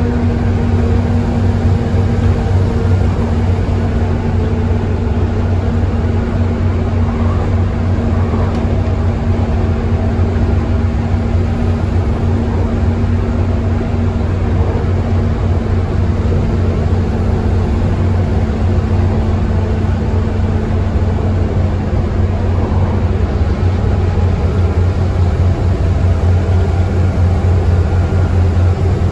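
Volvo B7TL double-decker bus's six-cylinder diesel engine thrashing hard under load at road speed, heard from inside the bus, with tyre and road noise. A steady deep drone whose note sags slightly lower through the second half.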